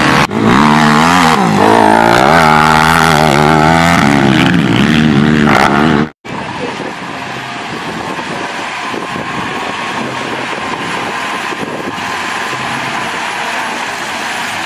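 A sport quad (ATV) engine revving hard, its pitch rising and falling again and again, loud. It cuts off abruptly about six seconds in, and is followed by a steadier, quieter running of a Shantui crawler bulldozer's diesel engine as it pushes dirt.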